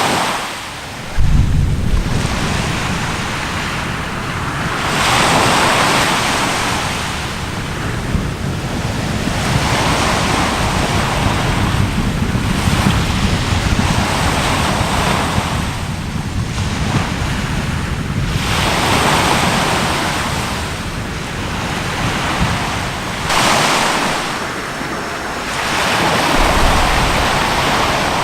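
Sea waves surging and washing in, swelling and fading every three to four seconds. Wind buffets the microphone as a low rumble that starts abruptly about a second in.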